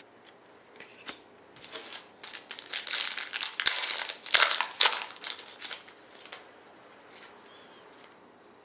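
Crinkling of a trading-card pack's foil wrapper being torn open and handled, in a burst of a few seconds that peaks near the middle.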